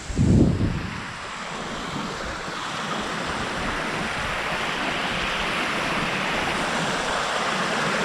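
A steady rushing hiss with no distinct calls or tones, growing slowly louder. A short low thump about half a second in.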